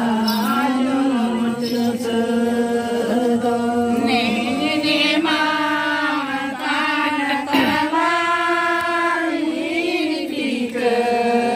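Slow ritual chant sung without instruments: long held notes that step up and down in pitch, with short breaks between phrases.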